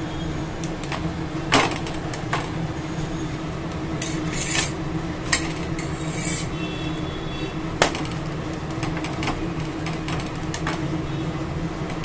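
A flat steel spatula scraping and tapping on an iron tawa as a paratha is pressed and shifted, with several scrapes and a few sharp clicks over a steady low hum.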